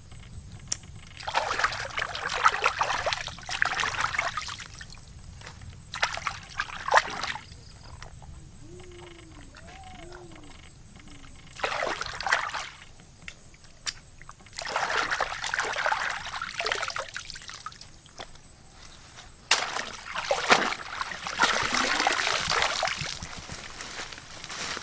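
Hands swishing and sloshing squid through shallow pond water as they are washed, in five bursts of splashing a few seconds each with quieter pauses between.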